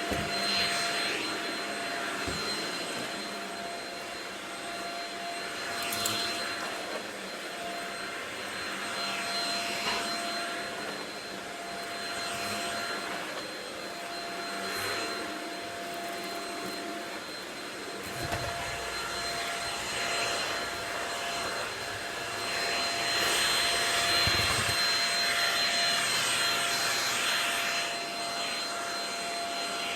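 Shark Rocket stick vacuum running: a steady motor whine over rushing suction air that swells and eases as it works, louder for a few seconds in the last third.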